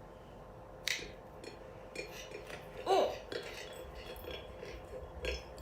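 Scattered clicks and clinks of utensils against a dish while food is handled, with one sharper click just under a second in. A short "oh" comes about three seconds in.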